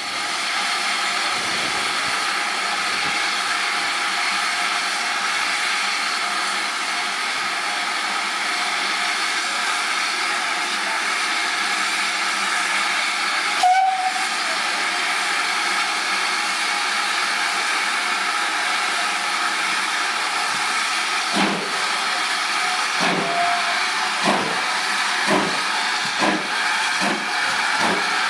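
Steam locomotive No. 4160, a GWR 5101-class large prairie tank engine, blowing off a loud, steady hiss of steam. About three-quarters of the way through, its exhaust beats begin, slow at first and quickening as the engine starts to move.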